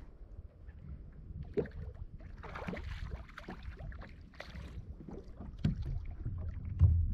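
A hooked bass splashing at the surface beside a kayak, in two bouts about two and a half and four and a half seconds in, over low wind rumble on the microphone. A sharp knock comes about one and a half seconds in, and a few low thumps come near the end.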